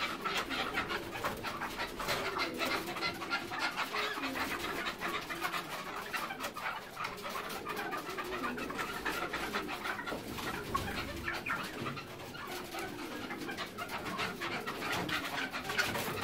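Caged red-legged partridges calling steadily, a dense mix of low notes and many quick clicking calls.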